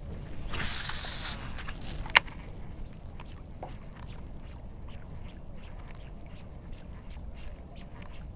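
A cast with a baitcasting rod and reel from a boat: a brief hiss of line running out near the start, then one sharp click about two seconds in. After that come faint, irregular light ticks over a low wind rumble.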